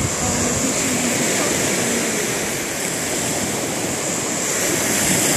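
Lake Ontario surf: waves breaking on a sandy shore and against boulders, a steady wash.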